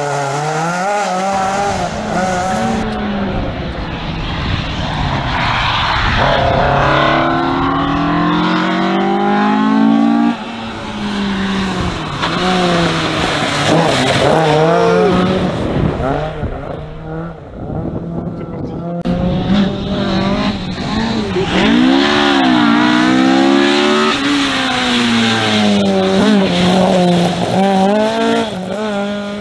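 Ford Escort RS1600 rally car driven hard: the engine revs up again and again, its pitch dropping at each gear change, over the hiss and spatter of tyres on mud and gravel. Several passes follow one another.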